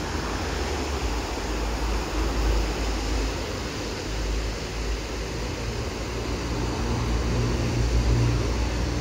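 Road traffic crossing a bridge over the canal: a steady low rumble. A car's engine hum comes in about halfway through and grows louder towards the end.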